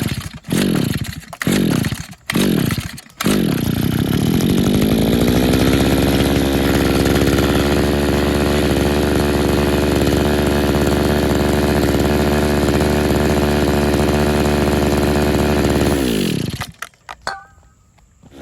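A worn RedMax string edger's small two-stroke engine is pull-started with a few short sputtering bursts. It catches about three seconds in, rises in pitch and settles into a steady run. About 16 seconds in it winds down and stops. It is running on carburetor cleaner with a suspected clogged carburetor jet, and it won't take throttle.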